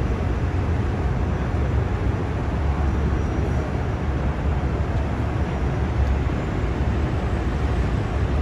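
Steady low rumble of a heavy tow truck's engine running while it works its boom, with no sharp knocks or changes.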